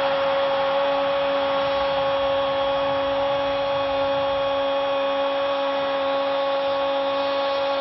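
Stadium crowd roaring after a home goal, a steady wash of noise. A constant hum-like tone runs underneath it.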